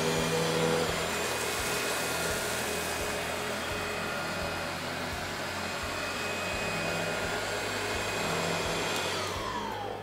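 Hoover CH50102 Insight commercial upright vacuum cleaner (1200 W) running steadily on carpet as it picks up scattered crumbs, a constant roar with a thin whine. Near the end the whine falls in pitch as the motor spins down.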